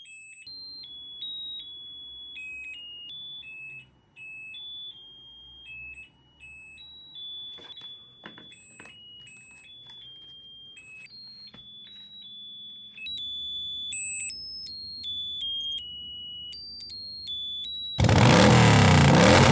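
Nippon cordless phone keypad beeping as a long string of numbers is dialled, one short high beep after another at different pitches, coming faster after about thirteen seconds. About eighteen seconds in, a sudden, very loud thundering engine roar cuts in.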